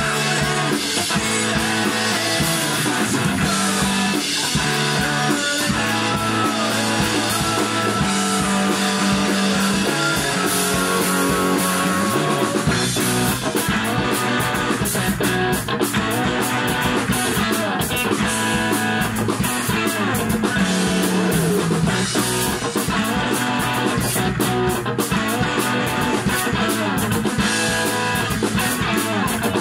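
Rock band playing live: distorted electric guitars and bass over a full drum kit (Mapex Saturn V drums, Ludwig Supraphonic snare, Zildjian cymbals). About thirteen seconds in, the drums and low end get heavier.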